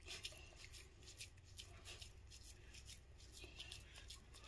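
Hands squeezing and pressing a crumbly laddu mixture of coarsely ground dry fruit and jaggery in a steel bowl. It makes faint, repeated soft rustling crunches.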